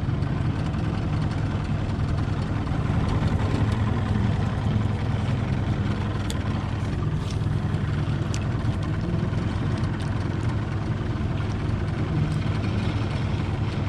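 Boat's outboard motor running steadily with a low, even hum, with a few faint clicks partway through.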